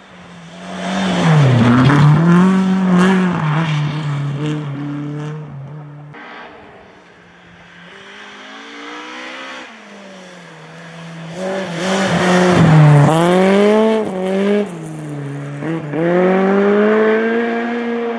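Rally car engines at high revs as cars drive a snow-covered special stage. The engine note climbs and drops again and again through throttle and gear changes, and it is loudest about two seconds in and again about thirteen seconds in.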